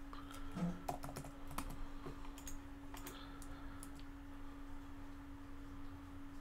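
Computer keyboard typing: irregular key clicks for about the first three and a half seconds, then the typing stops.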